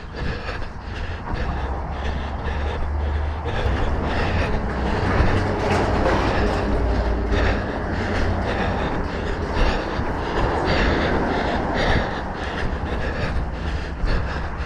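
A runner breathing heavily mid-run, with the rhythmic strike of footfalls and a low wind rumble on the microphone.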